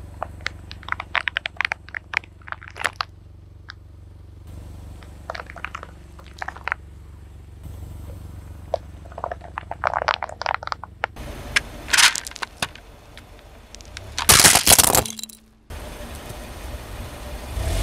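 A car tyre rolling over and crushing brittle objects: clusters of sharp crunching and cracking over a low engine rumble, in several short stretches, with the loudest crunch about fourteen seconds in.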